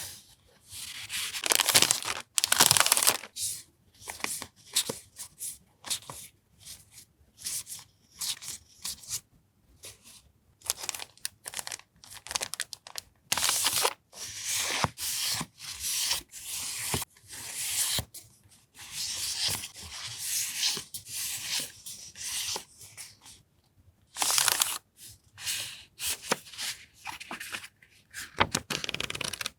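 Paper and plastic packaging of stationery being handled and unwrapped: irregular rustling, crinkling and tearing in short bursts with brief pauses and a few light clicks.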